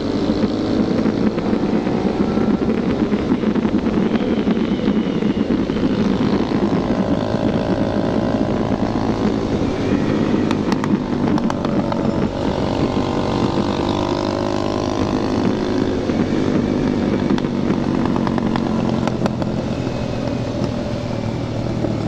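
Two sport motorcycles with open aftermarket full exhausts running together at road speed. The engine note rises and falls with the throttle, and there is steady wind noise.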